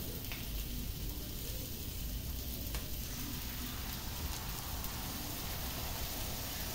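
Steady sizzling and spitting of butter and shrimp frying on a hot teppanyaki flat-top griddle, as beaten egg is poured onto the plate.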